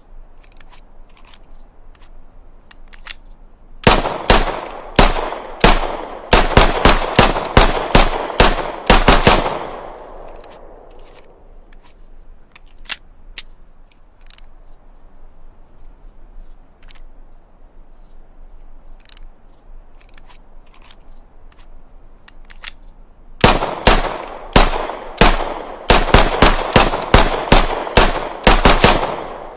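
Browning Hi-Power pistol fired in two rapid strings of about a dozen shots each, every shot ringing out after it; between the strings only faint clicks are heard.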